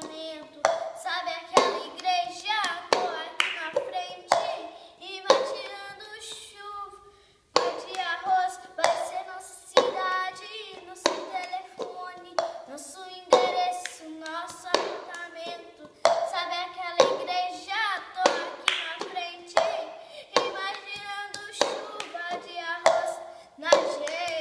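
A voice singing a wordless melody with vibrato over a rhythm of hand claps or slaps, about one sharp stroke a second.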